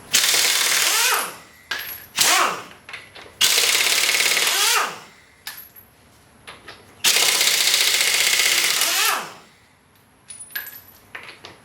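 Impact wrench hammering in four bursts, the longest about two seconds, each winding down with a falling whine as it stops, loosening the front wheel's lug nuts. Short clicks sound in the gaps between bursts.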